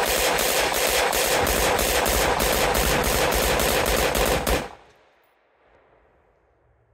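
AR-15 rifle emptying a 60-round drum magazine in a rapid, evenly spaced string of shots. The firing stops about four and a half seconds in and the echo dies away to near silence.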